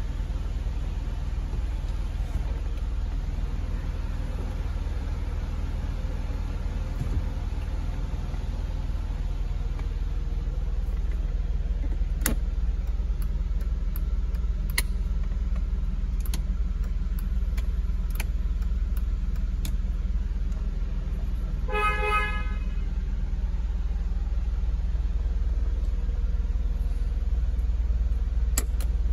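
Mercedes-Benz E320's 3.2-litre straight-six idling steadily with a low rumble, with scattered light clicks. About two-thirds of the way through comes one short horn toot lasting about half a second.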